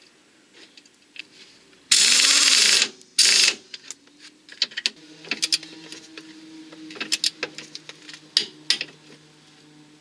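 Power tool spinning a subframe bolt in: a loud whirr of about a second, then a shorter burst. Scattered light metallic clicks and clinks of tools follow.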